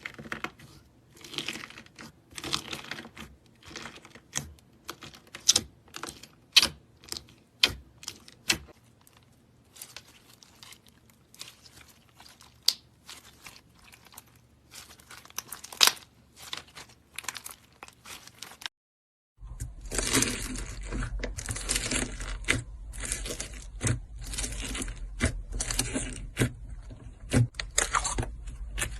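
Slime worked by hand, giving irregular sharp crackling pops and squishes. About two-thirds through it cuts out briefly, then resumes with denser crackling over a low hum.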